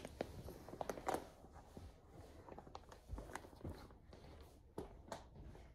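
Rustling and scattered small clicks and knocks of things being handled, the strongest cluster about a second in.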